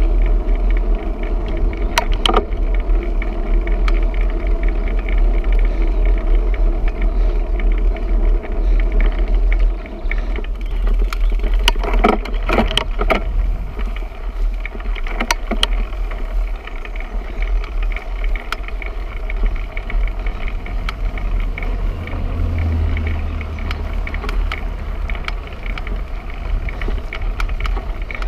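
Wind rumble on a bicycle-mounted camera's microphone with tyre and road noise as the bicycle rolls along, broken by a few sharp knocks about two seconds in and around the middle.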